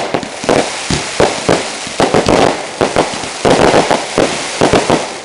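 Fireworks display: aerial shells bursting in a dense run of loud bangs in quick succession, with a continuous crackle filling the gaps between them.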